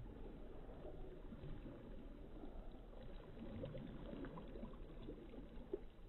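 Small waves lapping and washing over a pebbly shoreline, faint, with a light irregular trickle and a few soft clicks of stones.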